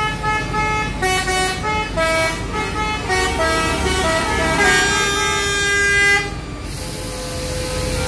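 Multi-tone musical bus horns (telolet horns) sounding a run of changing notes, honking back and forth in a queue of coaches. They stop suddenly about six seconds in, leaving a steady hiss and a single held tone.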